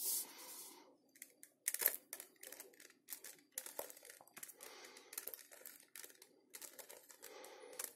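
Plastic 3x3 Rubik's cube being turned layer after layer in quick succession: a run of sharp clicks and scraping as the faces snap round. The same move sequence is being repeated to twist the last layer's corners into place.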